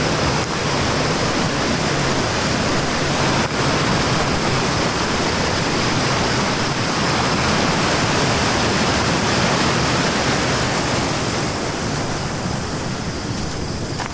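A swollen river rushing over a low concrete weir: a loud, steady rush of white water. The river is running high, fast and muddy after a night of heavy rain.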